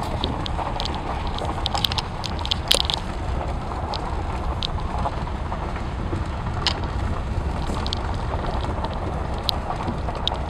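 Inside a sedan rolling slowly down a rough road: a steady low rumble of engine and tyres, with scattered light ticks and clicks.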